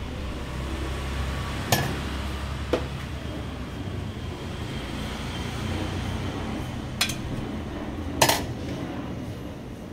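Four short clinks and knocks of crockery and serving utensils, the loudest near the end, over a steady low background hum.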